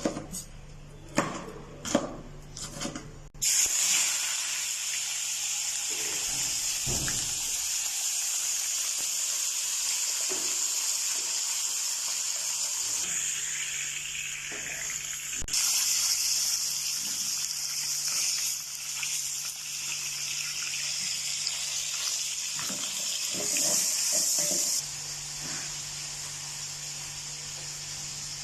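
A knife chopping quickly on a cutting board, then, about three seconds in, a sudden steady sizzle of food frying in hot oil in a pan. The sizzle grows louder about halfway through and eases off near the end.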